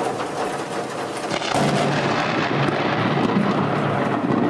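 Thunder rumbling and crackling continuously, growing louder about one and a half seconds in.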